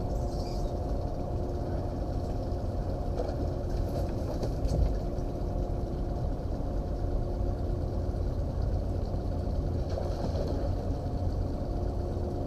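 Small outboard motor idling steadily on a fishing boat, a low, even hum, with a brief knock about five seconds in.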